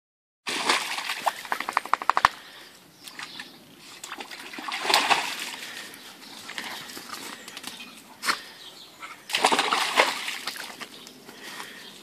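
Dogs splashing water in a shallow plastic paddling pool, led by an Irish red setter puppy: several bursts of splashing, with a quick run of splashes about two seconds in.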